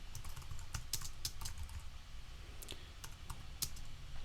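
Typing on a computer keyboard: irregular keystroke clicks, a few a second, with pauses between, over a faint steady low hum.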